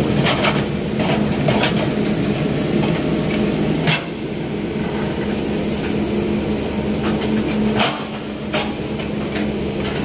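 Sumitomo S265 hydraulic excavator's diesel engine running steadily under digging load, dipping briefly twice. Several sharp knocks come from the bucket and arm as it works the drain trench.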